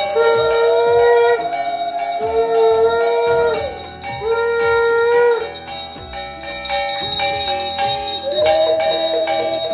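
A brass hand bell rung continuously during an aarti, with held musical notes over it. There are three notes of about a second each in the first half, and another one comes in near the end.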